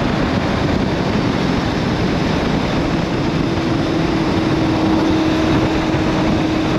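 Honda CB550K's air-cooled inline-four engine, fitted with Mikuni VM34 carburettors, running on the road under heavy wind rush on the handlebar-mounted camera's microphone. A steady engine note comes up about halfway through.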